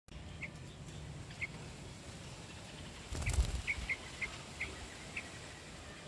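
Bulbul fledgling giving short, high chirps, about eight of them, spaced out at first and coming quicker in the second half. A brief burst of noise about three seconds in.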